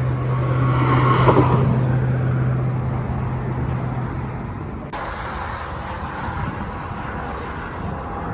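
Road traffic going by on the highway: a steady low drone for the first half, then, after an abrupt change, a quieter even hiss of passing cars.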